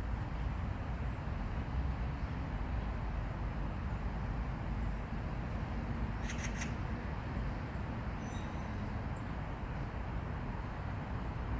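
Steady low outdoor rumble, with a short run of three or four sharp clicks a little past halfway through.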